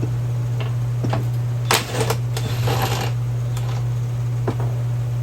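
Hand tools clicking and clinking on the steel parts of a floor jack while a fastener is worked loose, with a quick run of clicks about two seconds in. A steady low hum runs underneath.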